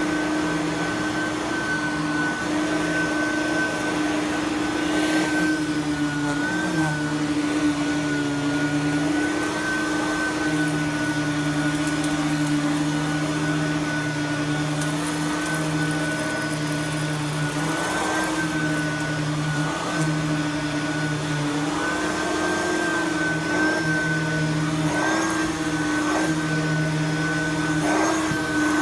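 Simplicity Freedom lightweight direct-air upright vacuum running steadily on carpet, with a high motor whine that wavers slightly in pitch as it is worked back and forth.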